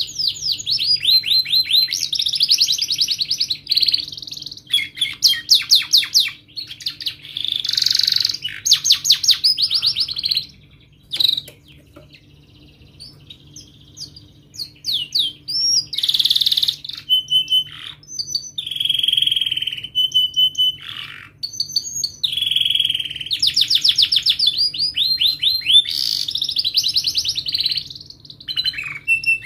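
Domestic canary singing in full voice: long runs of fast repeated notes and rolling trills, the song broken by a pause of a few seconds about a third of the way through before it starts again.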